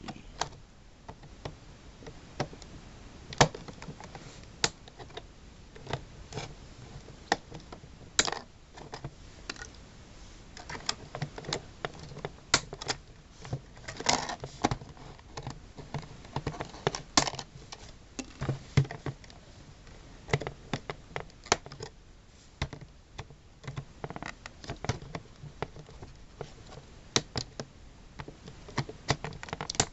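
Hands working at the packaging of a boxed die-cast model: irregular sharp clicks and taps with a few longer scraping, rustling stretches, as cardboard, plastic and tape are handled and pulled apart.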